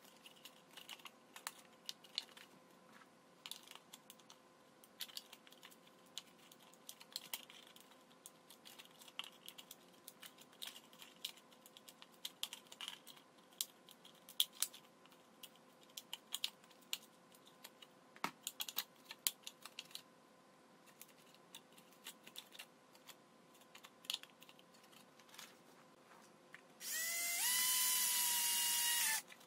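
Light clicking and crackling of thin plastic bottle blades being bent and worked with pliers. Near the end, a cordless drill runs for about two and a half seconds, its whine rising as it spins up and then holding steady as it drills through the bottle's centre.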